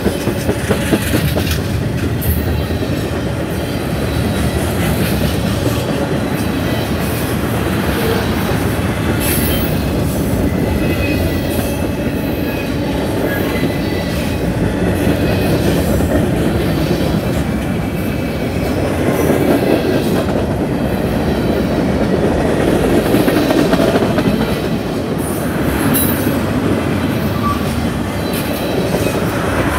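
Union Pacific manifest freight train's cars (tank cars and covered hoppers) rolling past: a steady, loud rumble of steel wheels on rail, with repeated clicks over the rail joints and a faint high wheel squeal.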